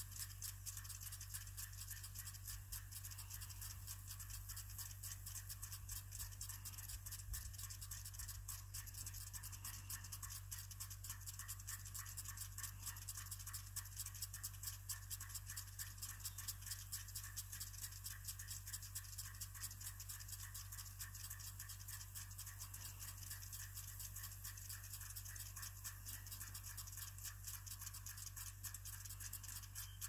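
Impact sprinklers on a wheel line irrigation system spraying: a steady, dense, fast ticking with a hiss of water, faint, over a steady low hum.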